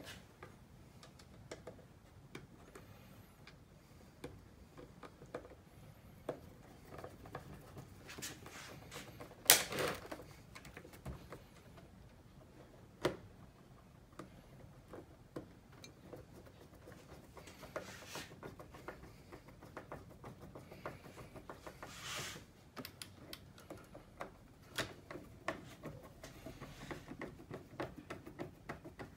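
Scattered small clicks, taps and rattles of hand-driven screws and plastic parts as a Shark Ion robot vacuum's underside is screwed back together with a hand screwdriver, with one sharp knock about a third of the way through.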